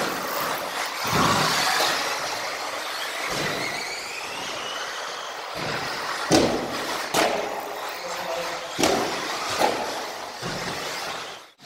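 Electric radio-controlled cars running on a carpet track: a high motor whine that rises and falls in pitch as they speed up and slow down, over the hiss of tyres on carpet. Several sharp knocks come in the second half as the cars land from ramps and hit the track. The sound cuts off abruptly near the end.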